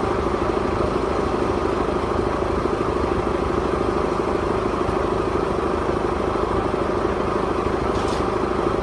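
An engine running steadily at one constant speed, with no revving or load changes. A brief faint higher-pitched sound cuts in about eight seconds in.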